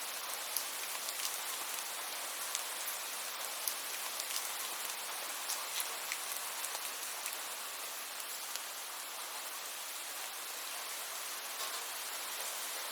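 Steady rain falling, a continuous hiss with scattered sharp drips and drop impacts ticking irregularly throughout.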